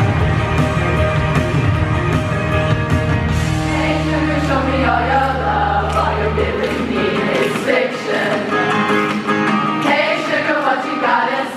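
A girls' choir singing live with rock band accompaniment of electric guitars and bass. About seven seconds in, the band's heavy low end drops out, leaving the massed voices singing over lighter backing.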